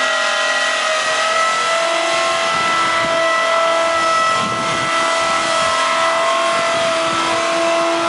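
Swing blade sawmill's circular blade and drive running free out of the cut, a steady whine of several tones. A lower hum comes and goes a few times. The blade is unloaded after finishing a cut through pine.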